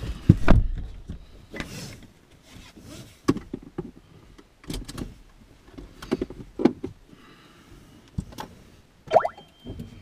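Handling sounds inside a Nissan Leaf's cabin as the driver settles in: a heavy thump about half a second in, like the car door shutting, then rustling, knocks and clicks as he pulls on and buckles the seatbelt. Near the end comes a short rising tone and a steady high beep.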